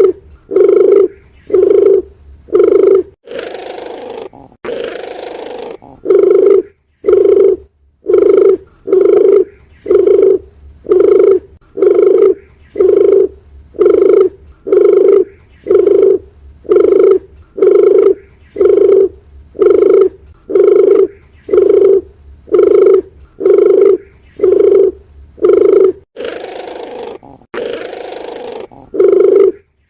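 Dove cooing: a low coo repeated steadily about once a second. Twice the coos give way to a couple of seconds of hissing noise, near the start and near the end.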